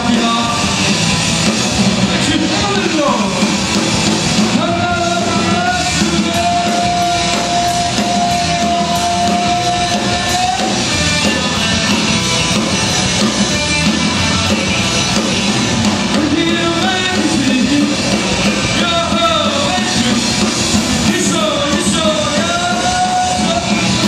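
Live rock band playing loud: drums, electric guitar and a singer, with one long held note about six seconds in.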